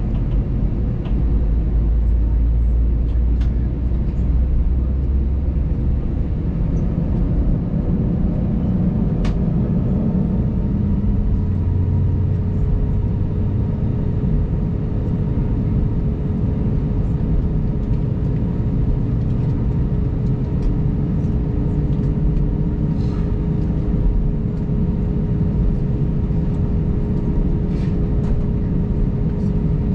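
Airbus A320 cabin noise while taxiing: a steady low rumble from the engines with a steady whine over it, and a few faint ticks.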